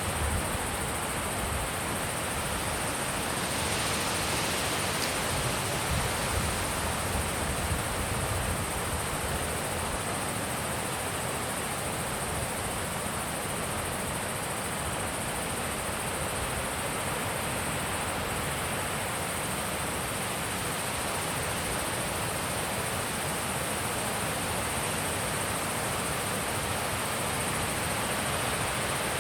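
Steady wind blowing on a mountain pass, an even rushing noise with some low buffeting of the microphone near the start.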